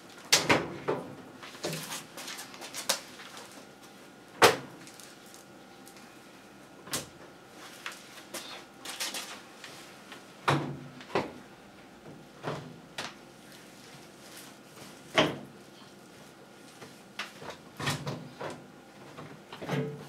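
Plastic top cover of a top-loading washing machine being handled and fitted: an irregular series of sharp knocks, clicks and clatters as the panel is shifted and pressed into place.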